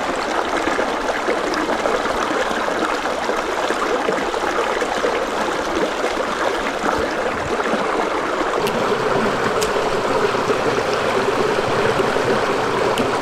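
Water of a small stream flowing steadily, a loud, even rushing sound.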